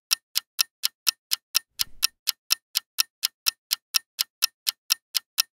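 Clock ticking sound effect: sharp, even ticks at about four a second, a waiting timer while the swap goes through.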